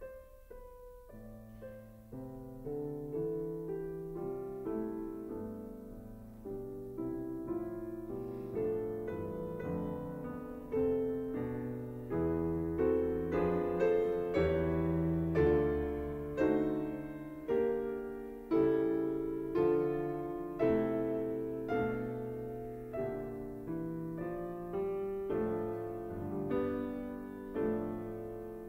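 Piano music: chords and single notes struck at a slow, even pace, each ringing and dying away, growing louder about ten seconds in.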